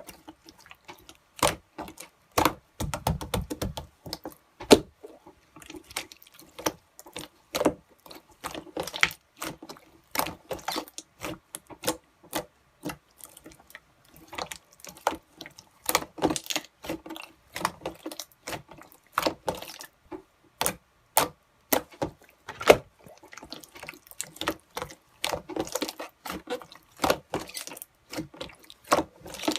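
Golden pearl slime being squished and stretched by hand, making an irregular stream of wet clicks and pops.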